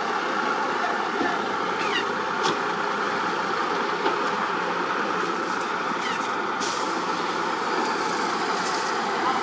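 Heavy dump trucks' diesel engines running steadily while tipping loads of soil from raised beds. A few short sharp sounds cut in over the engine noise.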